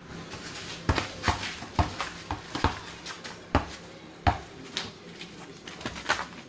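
Basketball being dribbled on packed dirt, bouncing with a sharp thud about every half second, unevenly spaced as the player moves.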